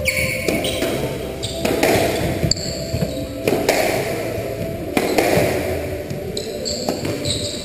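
Squash rally: the ball smacks off rackets and the walls at irregular intervals of about a second, each hit ringing on in the court, with shoes squeaking sharply on the wooden floor twice.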